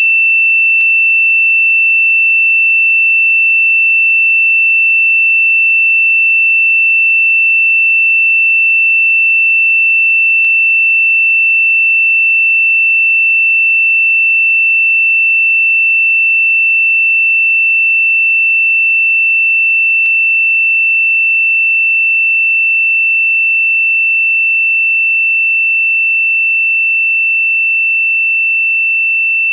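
A single steady, high-pitched, electronically generated sine tone held at one pitch, the meditation 'frequency' itself, with a faint click about every ten seconds. It grows slowly quieter toward the end.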